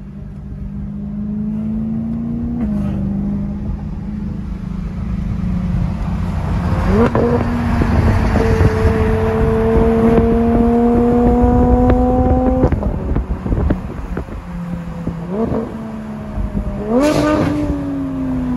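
Car engine pulling under acceleration, heard from inside a moving car over road rumble; its pitch climbs slowly, drops sharply about two-thirds through, and jumps up in quick rev blips near the end.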